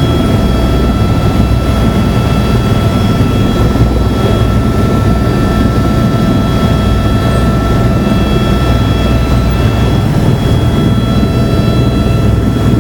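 Helicopter's engine and rotor running at flight power, heard from inside the cabin as it lifts off the pad: a steady low rotor drone with a constant high whine over it.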